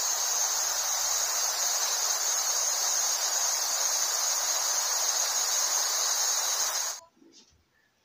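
Waterfall: a steady hiss of water falling onto rocks, with a steady high-pitched band above it. It cuts off suddenly about seven seconds in.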